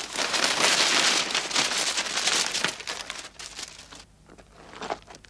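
Paper files and documents tumbling down a deep shaft: a dense rush of rustling, crinkling paper that fades out after about three and a half seconds, leaving a few faint ticks.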